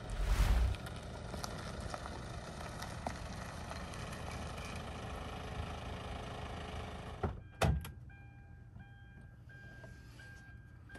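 An SUV running steadily until it goes quiet about seven seconds in. A door latch then clicks, and the car's warning chime beeps repeatedly with the driver's door open.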